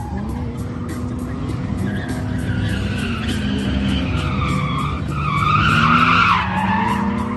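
Car drifting: the engine runs at high revs, its pitch wavering, while the tires screech, the screech building and loudest about six seconds in.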